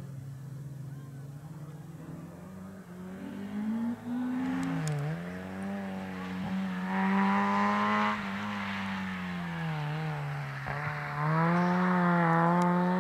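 Rally car engine coming closer at full stage pace, its note rising and falling with gear changes and lifts of the throttle, with sharp dips about five seconds in and again about ten and a half seconds in. It is loudest in the last couple of seconds.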